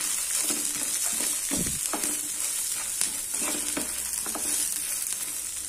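Wooden spatula stirring and scraping peanuts, roasted gram, green chillies and coconut pieces around a pan as they roast in a little oil, with a steady light sizzle.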